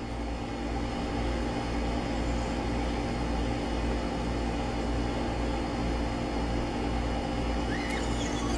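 Steady machine hum made up of several constant low tones that do not change. A faint short rising squeak comes near the end.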